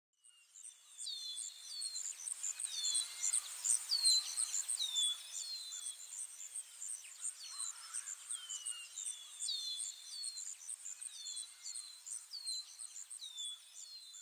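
Outdoor nature ambience of birds and insects: a fast, steady, high-pitched insect chirring with repeated short bird chirps that slide down in pitch. It starts abruptly just after the beginning.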